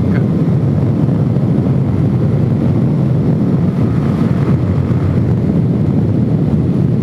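Suzuki DRZ400S single-cylinder four-stroke engine running steadily under way at road speed through its aftermarket exhaust, a dense, even rumble with no change in pitch.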